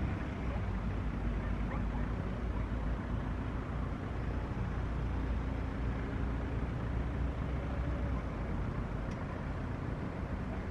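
Steady low rumble of distant engines, with a faint steady hum over it.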